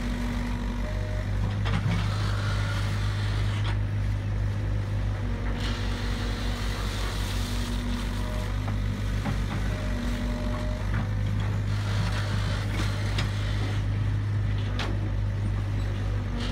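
Crawler excavator's diesel engine running steadily with a low, pulsing drone while the arm digs, a higher hum coming and going several times as the hydraulics work, and a few sharp knocks.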